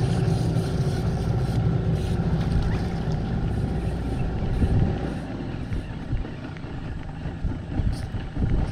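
A boat motor running steadily with a low hum, easing off about five seconds in.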